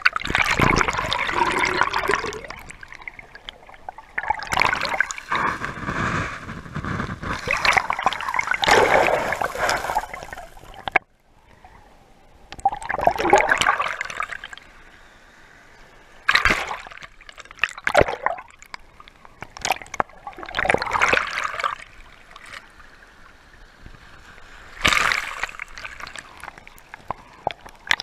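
Shallow ocean waves washing over a camera at the water's edge: surges of sloshing, splashing and gurgling water every few seconds, right on the microphone, with quieter gaps between.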